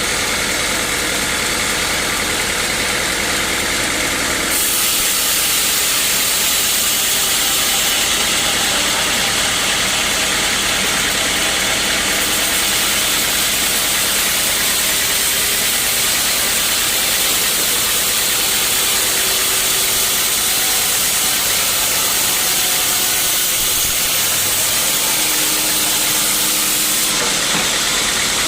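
Sawmill machinery running steadily, with a loud high hiss of the saw cutting through a teak log that starts about four seconds in and stops shortly before the end.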